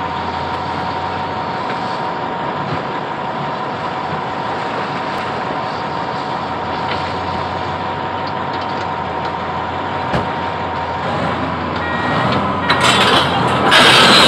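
Caterpillar D9R bulldozer's diesel engine (a Cat 3408E V8) running steadily with a steady high whine. Over the last few seconds it grows louder and rougher, with some clatter, as the dozer begins to move.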